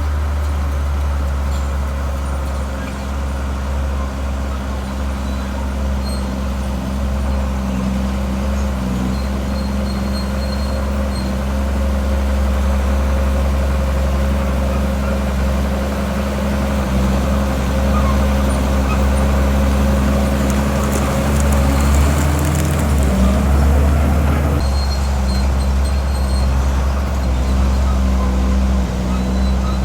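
Heavy diesel engine of earthmoving machinery running steadily under load, with a deep drone; about three-quarters of the way through its pitch briefly shifts upward before settling again.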